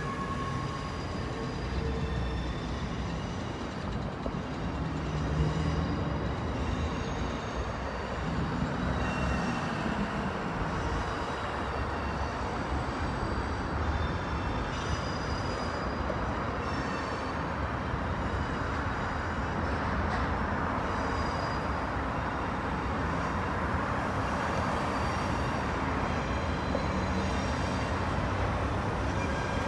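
VIA Rail passenger train of Budd stainless-steel coaches rolling slowly in reverse along an elevated track: a steady rumble of wheels on rail that grows louder about eight seconds in, with short high squeaks scattered through it.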